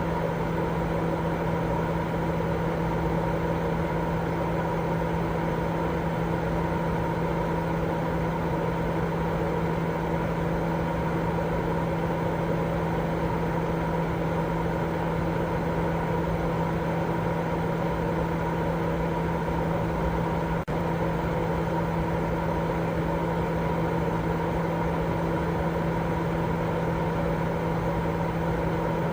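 Steady sleep white-noise track: an unbroken rushing noise, weighted toward the low end, with a steady hum of several tones running through it. It drops for an instant about two-thirds of the way through, then carries on unchanged.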